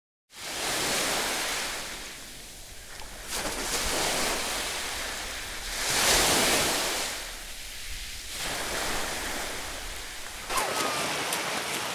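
Sea water at a beach: surf and splashing water, a noisy wash that swells and fades every two to three seconds.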